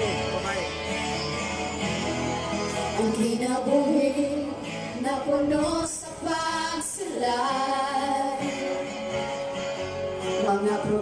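Live worship song in Bisaya: a woman singing a sustained melody into a microphone, accompanied by strummed acoustic guitar.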